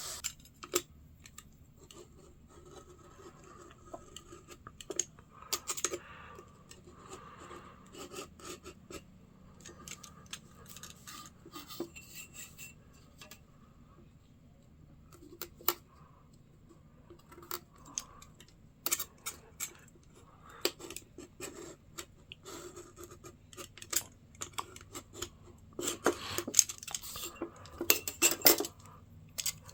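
Hand work at a workbench: scattered small metal clicks and clinks with rubbing and scraping, coming in quick clusters and busiest near the end.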